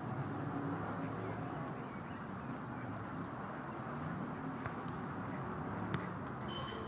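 Steady low outdoor background noise, with a couple of faint clicks and a short high-pitched sound near the end.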